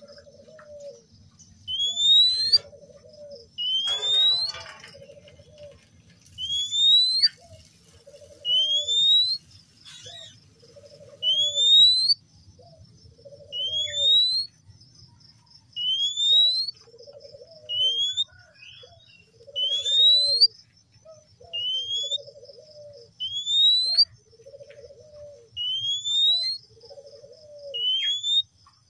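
Male Oriental magpie-robin calling: a short, sharply rising whistle repeated about every one and a half to two seconds, each with a lower, rasping note.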